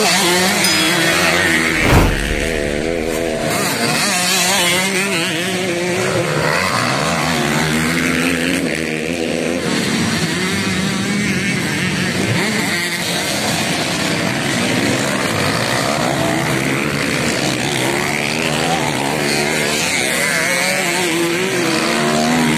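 Dirt bikes' engines revving as they ride and jump a dirt track, several engines rising and falling in pitch over one another, with a thump about two seconds in.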